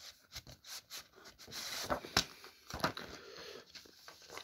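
A plastic DVD box set and its paper or card parts being handled: scattered clicks and rustling, with one sharp click about two seconds in.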